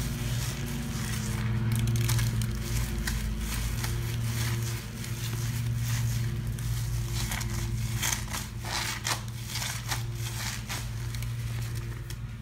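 A soapy cellulose sponge full of Comet cleanser foam squeezed and wrung in rubber-gloved hands, giving wet crackling squelches that come thickest in the second half. Under it runs the steady low hum of a lawn mower engine outside.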